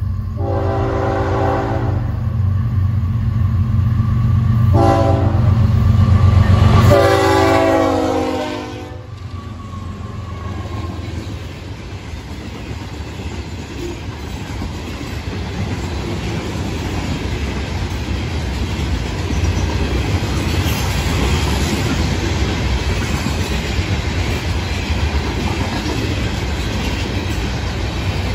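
Florida East Coast Railway freight train passing at speed. The lead GE ES44C4 locomotives' horn sounds three times, long, short, then long, over the steady drone of the diesel engines, which drops away about eight seconds in as the locomotives go by. The loaded rock hopper cars follow, rolling past with a continuous clatter of steel wheels on the rails.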